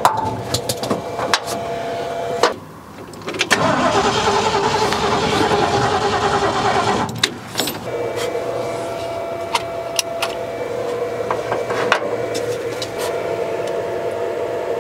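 Engine of a 1972 Ford F100 cranked over by the starter without catching, in two stretches with a short pause between them, then a steady hum with a few clicks. The owner believes fuel is not reaching the carburetor, or that it may now be flooded.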